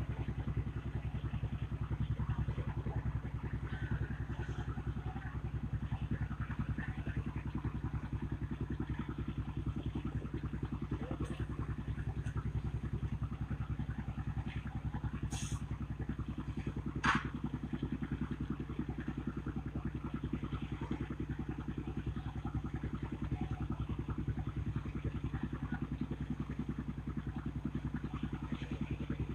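An engine running steadily at an even speed, with one sharp clank about seventeen seconds in.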